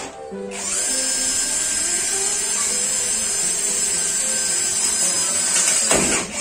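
Cordless drill running at full speed against a wall for about five seconds, a steady high whine that winds down and stops near the end.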